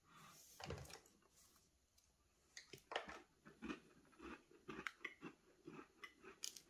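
A person chewing a bite of a chocolate, hazelnut and raisin cookie, with a louder crunch or rustle in the first second and then soft, regular chewing about twice a second.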